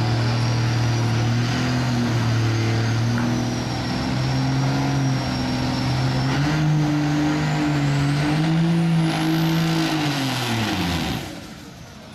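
Second-generation Dodge Ram diesel pickup's turbocharged engine held at full throttle while dragging a pulling sled, with a high turbo whistle that climbs steeply in pitch over the second half. About a second before the end, the engine winds down and goes much quieter as the throttle comes off at the end of the pull.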